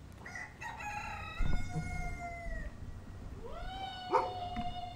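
Rooster crowing twice, two long drawn-out calls about three seconds apart, the second rising and then holding steady.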